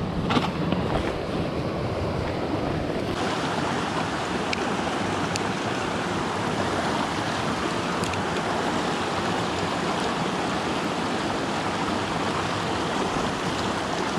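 Steady rush of a fast, shallow mountain creek running over rocks. It becomes fuller and louder about three seconds in as the microphone comes close to the water. Before that there are a few knocks and scuffs of footsteps on boulders.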